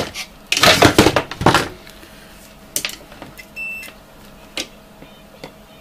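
Clatter of tools and multimeter test leads being handled on a workbench, loudest from about half a second to a second and a half in. About three and a half seconds in, a short high beep from the digital multimeter, with a few light clicks around it.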